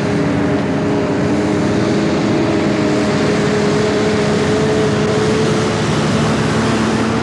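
A motor vehicle's engine running loud and steady, with a few held engine tones under an even rushing noise.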